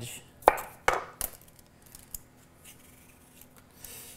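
Kitchen knife cutting the ends off a potato and knocking on a wooden cutting board: three sharp knocks within the first second and a half. After them come faint scraping sounds, with a peeler scraping potato skin near the end.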